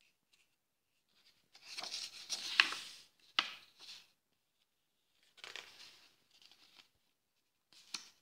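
Pages of a hardcover picture book turned by hand, the paper rustling twice. The first turn comes about two seconds in and ends in a sharp snap. The second runs from about five to seven seconds, and a short rustle comes near the end.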